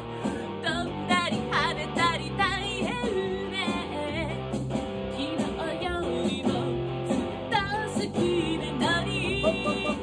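A woman sings a pop song with vibrato into a microphone, accompanied by an electric guitar played through an Effects Bakery NEW GINGER FUZZ pedal.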